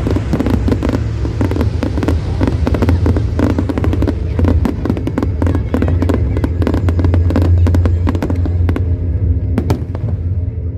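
Aerial fireworks going off in quick succession: many sharp crackles and bangs over a continuous deep rumble, with music playing underneath.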